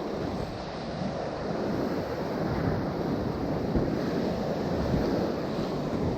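Ocean surf washing on the shore, with wind buffeting the microphone; the noise swells a little about two seconds in.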